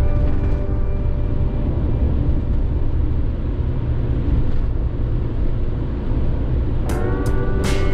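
Camper van driving on a country road, heard from inside the cab: a steady low rumble of engine and tyre noise. Background music fades out at the start and comes back about seven seconds in.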